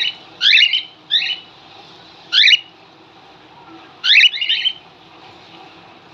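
Cockatiel calling: sharp, loud rising chirps in five short clusters over about five seconds.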